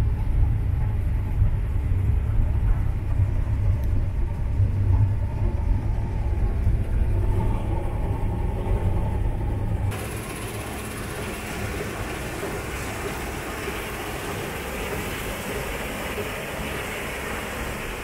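CLAAS LEXION combine harvester running while harvesting grain, with its header reel and cross auger turning through the crop: a steady, heavy low rumble. About ten seconds in the sound changes abruptly to a quieter, steady hiss with less rumble.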